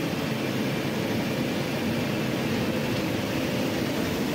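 Steady engine and road noise of a moving bus, heard from inside the passenger cabin.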